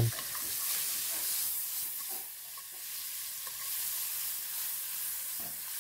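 Shrimp frying in butter in a nonstick pan, a steady sizzle, with a few faint knocks as the shrimp are turned and the pan is moved.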